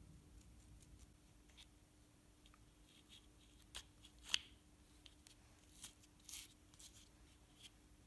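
Near silence with a few faint clicks and light taps of small wooden lock parts being handled and fitted together: a dowel shackle going into a wooden combination lock with its dials. The sharpest click comes a little past halfway.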